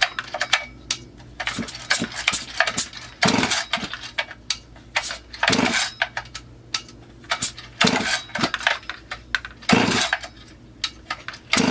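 Recoil starter of a Huztl MS440 clone chainsaw pulled about four times, a short rasping whir with each pull, among clicks and knocks of handling. The newly built engine does not fire.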